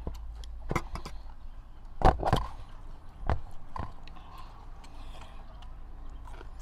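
Scattered clicks and knocks of a spoon and food being handled on a tray of food and a small sauce bowl during a meal. The loudest is a sharp pair of knocks about two seconds in, with softer ones after three seconds.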